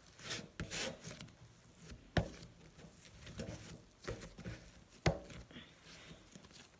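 Hands working a ball of oiled bread dough on a wooden board: soft rubbing and handling noise with a few sharp knocks against the board, the loudest about two seconds in and about five seconds in.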